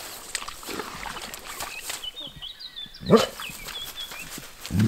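Doberman rooting through tall grass, rustling and sniffing as it searches for frogs. A sharp loud snort comes about three seconds in, and a second, lower one comes near the end.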